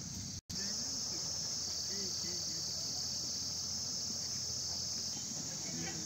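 Steady high-pitched chorus of insects trilling without a break, with faint distant voices under it. The sound cuts out completely for an instant about half a second in.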